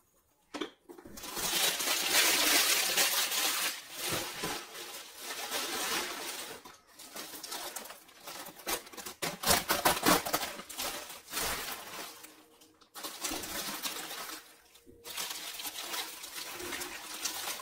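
Packaging rustling and crinkling in stretches, with a few brief pauses, as small items are unwrapped by hand.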